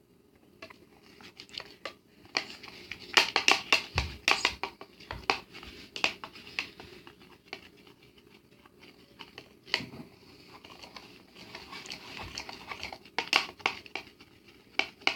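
A spoon stirring and scraping a thick soap-and-salt slime mixture in a bowl: irregular clicks, taps and wet scrapes, busiest about three seconds in and again near the end.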